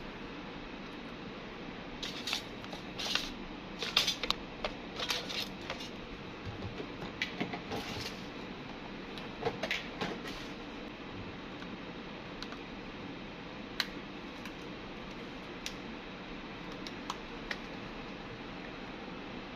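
Small clicks and taps of hand tools and phone parts being handled during a smartphone repair, in clusters over the first half and scattered later, over a steady background hiss.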